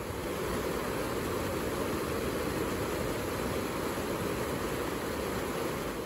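Water pouring over a low weir and churning in the pool below, a steady rushing noise.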